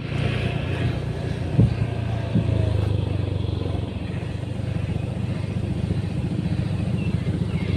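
Motorcycle engine running steadily as it is ridden, with two brief knocks about one and a half and two and a half seconds in.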